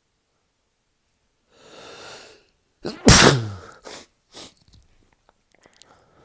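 A man sneezing loudly from a head cold. A breathy build-up inhale comes first, then a single full, unstifled sneeze whose voiced 'choo' falls in pitch.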